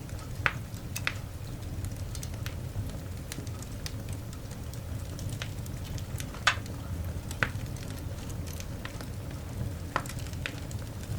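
Coal fire burning in a cast iron dog grate: small crackles all through over a steady low rumble, with a few sharper pops, the loudest about six and a half seconds in.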